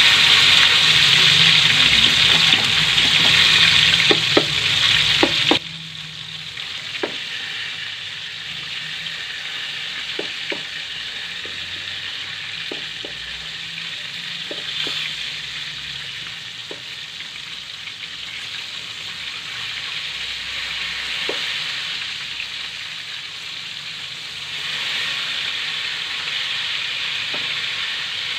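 Breaded chicken pieces deep-frying in oil in an aluminium wok: a steady sizzle, loud for the first five seconds or so, then dropping abruptly to a quieter level and rising again near the end. Scattered light clicks of tongs and a knife against the pan as the pieces are poked and turned.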